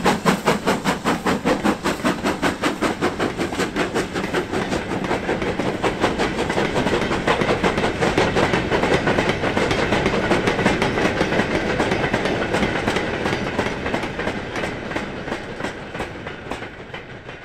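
BR Standard Class 5 steam locomotive 73156 passing at speed with a rhythmic exhaust beat, followed by its train of goods vans rattling over the rail joints. The sound fades away near the end as the train draws off.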